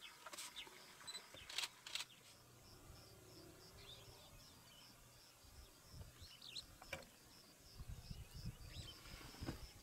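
Quiet open-grassland ambience: a faint, steady high chirping repeats about four times a second, with a few short bird chirps over it. There are some sharp clicks in the first two seconds and a low rumble near the end.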